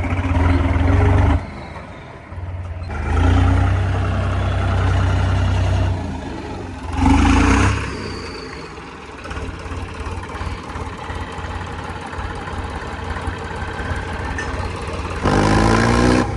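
Tractor diesel engine revved hard in repeated surges, dropping back between them, with the engine pitch climbing again near the end.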